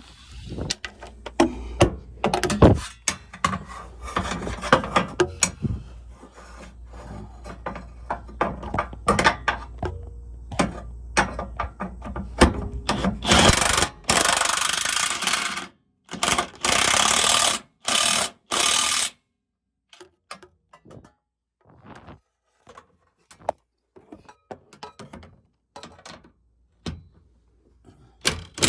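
Tools clicking and knocking against metal, then several short bursts of a power tool a little past the middle, with a few scattered clicks after. This is work under a pickup to remount its fuel tank and reconnect it after a fuel pump replacement.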